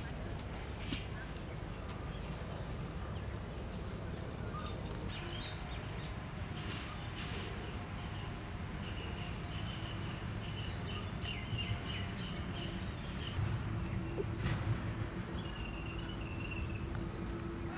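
A bird calling with a short rising chirp, repeated about every four seconds, over steady outdoor background noise, with a few soft knocks a little past the middle.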